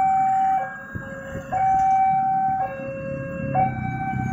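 Railway level-crossing warning alarm sounding a two-tone hi-lo signal, switching between a higher and a lower tone about once a second. Motorbike engines run underneath, growing louder near the end.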